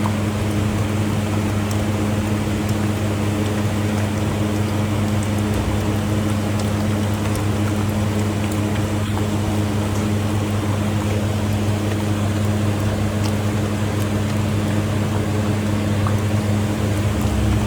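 A steady low mechanical hum with an even background rush, unchanging throughout, with faint scattered ticks above it.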